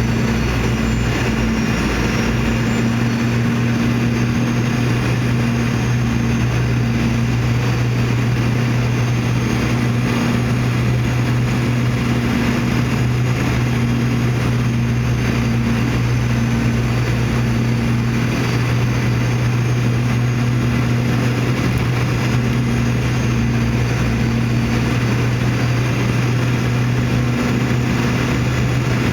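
Steady cabin noise of a Boeing 717-200 in flight: the drone of its rear-mounted Rolls-Royce BR715 turbofans and rushing airflow, with a constant low hum, a slightly higher tone that wavers in and out, and faint high-pitched whines.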